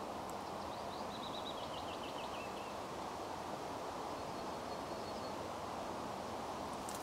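Steady outdoor background hiss by a reedy pond. About half a second in, a small bird sings a quick run of high notes that falls in pitch over about two seconds, and a faint thin high note follows later.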